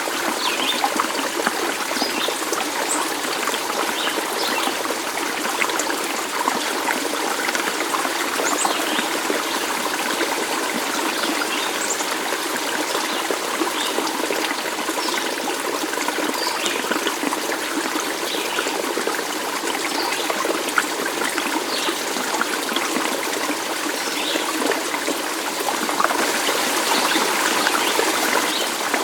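Shallow stream trickling and babbling steadily, with many small splashes and bubbles throughout; the flow grows slightly louder near the end.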